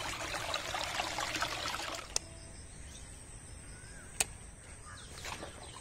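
Shallow stream water trickling and splashing over stones for about two seconds, then a quieter outdoor stretch broken by two sharp clicks.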